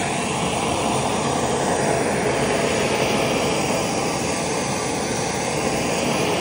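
Handheld electric heat gun blowing hot air, a steady loud rushing whir, warming the white pigment line on wet epoxy resin.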